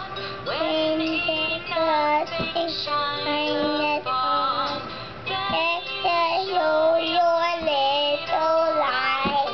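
A child singing a tune, holding notes and moving from pitch to pitch.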